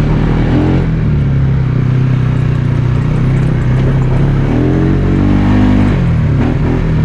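Polaris Sportsman ATV engine running as the quad is ridden along a trail. The engine pitch rises about four and a half seconds in and settles back about a second and a half later.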